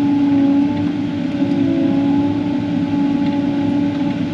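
Engine running steadily at an even speed, a constant hum with a strong low tone and no change in pitch.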